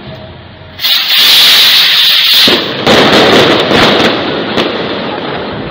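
A rack of kwitis stick sky rockets going off together: a sudden loud rushing hiss about a second in, then a dense run of crackling bangs that slowly fades toward the end.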